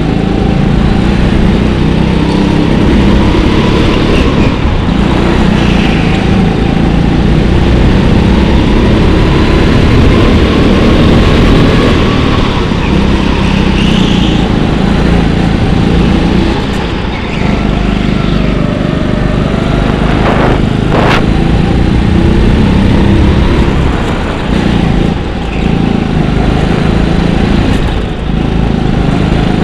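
Go-kart engine recorded onboard, its pitch rising and falling as the kart accelerates out of corners and slows into them. A sharp knock comes about two-thirds of the way through.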